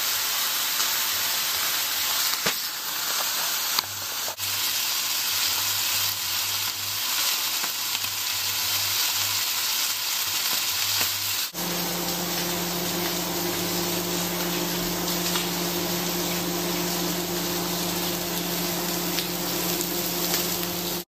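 Goat meat frying in a crowded pan: a steady, dense sizzle. Partway through, a steady low hum joins the sizzle.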